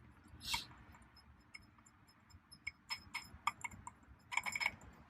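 Small, irregular metallic clicks and taps of bolts and hand tools being worked while the steering-wheel hub is bolted on, with a brief soft rustle about half a second in and a quick cluster of clicks near the end.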